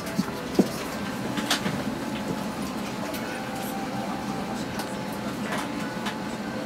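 Airliner cabin during boarding: a steady cabin hum with faint passenger chatter and scattered clicks and knocks from people stowing bags. A sharp knock about half a second in is the loudest sound.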